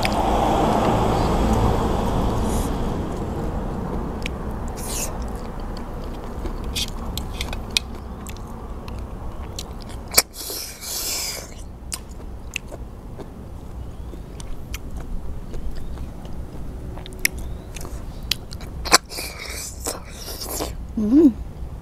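Close-up eating sounds of cooked river snails being sucked out of their shells: wet slurps and chewing with small sharp clicks. The shell tips have been cut off so the meat sucks out easily; one loud slurp comes about ten seconds in, and more near the end.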